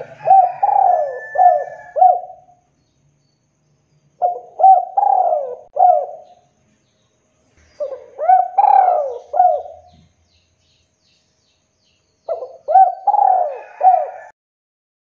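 Spotted dove cooing: four phrases of several quick, arching coo notes each, with a pause of a second or two between phrases.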